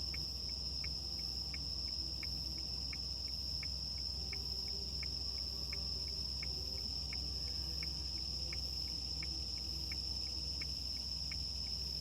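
Crickets singing in the night: a steady, unbroken high trill, with a lower regular chirp about three times a second. A steady low hum runs underneath.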